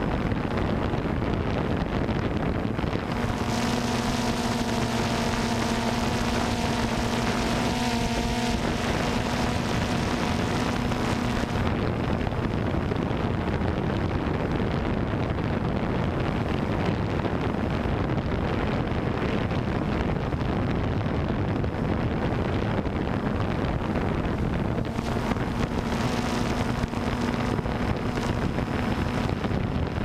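Quadcopter drone's motors and propellers buzzing steadily, heard from the drone's own onboard camera, with wind rushing on the microphone. A humming tone rises out of the buzz a few seconds in, fades out partway through, and comes back briefly near the end.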